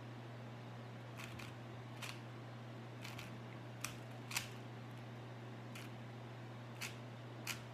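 A 3x3 speed cube's layers being turned by hand: a string of short, sharp plastic clicks at an uneven pace, about ten in all, the loudest about four seconds in. A steady low hum runs underneath.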